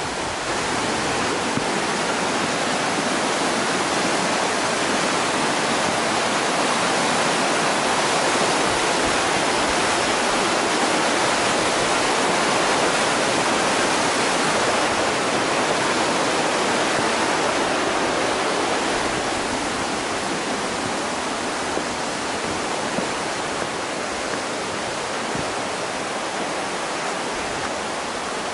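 Fast mountain river rushing over rocks: a steady white-water rush that grows louder in the middle and eases off toward the end.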